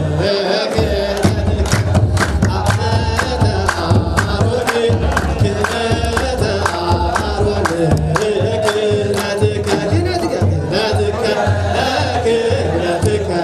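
A crowd singing a chant together, with steady hand-clapping and the beat of large kebero hand drums.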